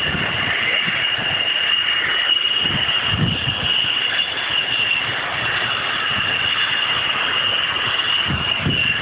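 F-16 fighter jet's engine running with a steady high whine over a rushing noise as the jet taxis along the runway.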